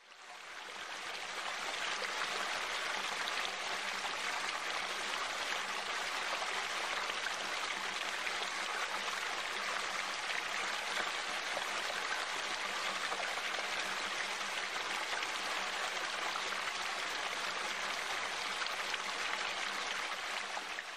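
Water spilling over a small stone weir into a rocky stream: a steady, even rush of splashing water that fades in over the first two seconds and fades down near the end.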